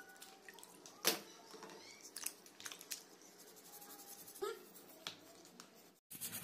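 Toothbrush scrubbing the shell of a black freshwater crab held over a basin of water: faint brushing, with a sharp click about a second in and another near four and a half seconds.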